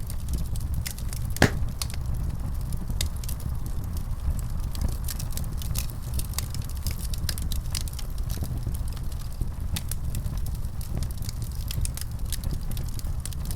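Fire burning in a fireplace, crackling with frequent sharp pops and snaps over a steady low rumble. One louder pop comes about a second and a half in.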